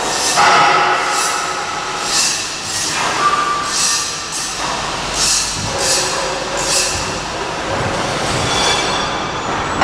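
A small hydraulic airplane kiddie ride running, its centre column turning the arms: a steady mechanical squealing and rumble, with short hisses repeating every half second to a second.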